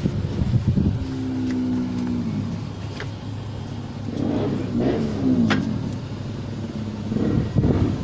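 Isuzu 6WF1 diesel engine running with a low rumble, its tone falling off twice as the revs drop. The engine suffers from low power and hard starting, put down to its high-pressure fuel pump.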